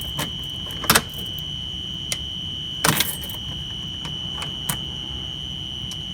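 Fire alarm strobes flashing with sharp clicks every second or two over a steady high-pitched whine, the system still in alarm with its horns silenced.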